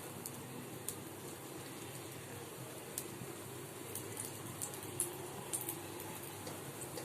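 Potatoes frying in hot oil: a steady sizzle with scattered sharp pops and crackles at irregular moments.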